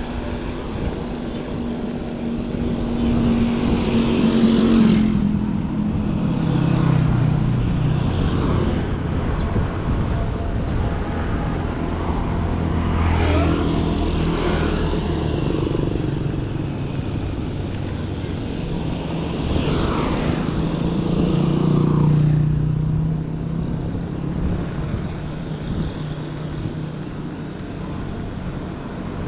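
Road traffic: a series of motor vehicles passing one after another, each with an engine hum and a tyre-noise swell that rises and fades, about seven passes in all.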